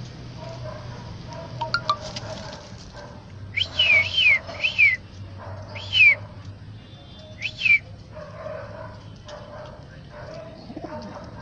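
Pigeons cooing low in the background, broken around the middle by several loud, short, high whistled calls that rise and fall, in a quick group of four and then two single ones.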